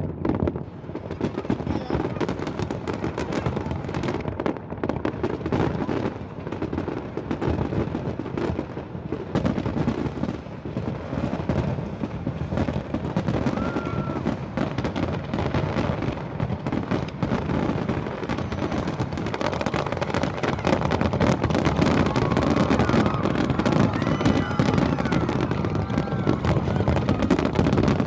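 Fireworks going off in a dense, continuous barrage of bangs and crackling, growing louder in the last third.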